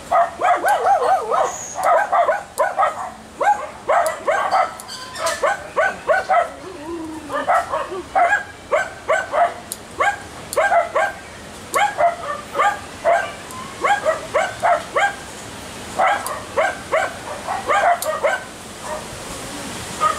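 A dog barking over and over in quick runs of short, high yaps, several a second, with brief pauses between runs.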